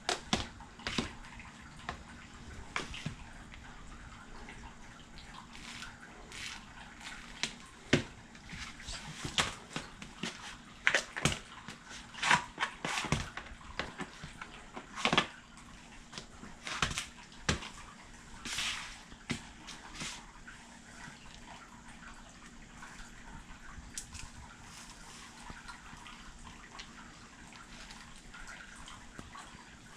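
Dehner leather boots stomping and grinding a tub of ice cream on a flattened cardboard box: irregular crunches, cracks and wet squishes of the crushed carton and soft ice cream. The crunches come thick in the middle stretch and thin out toward the end.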